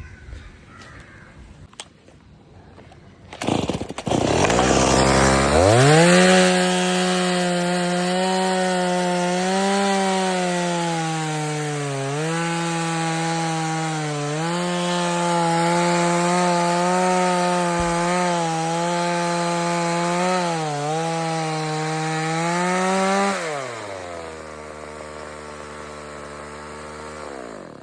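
Two-stroke chainsaw starting up and revving to full throttle, cutting wood at a high steady pitch with a few brief dips as it loads. About 23 seconds in it drops to idle, and it cuts out at the end.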